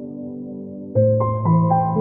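Slow, soft background music: sustained piano-like notes, with a new chord coming in about a second in.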